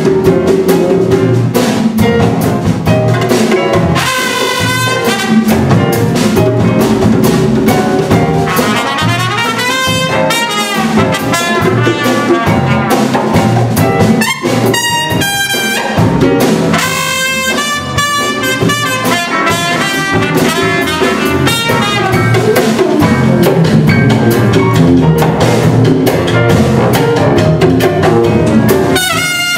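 A jazz big band playing live: a brass and reed section with a trumpet out front, over double bass, drums and congas.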